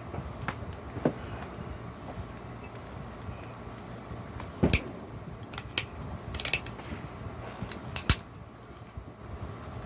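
Pressure flaking a cherry quartz flake: scattered sharp clicks and small snaps as tiny flakes break off the edge under the tool, the loudest about four and a half and eight seconds in.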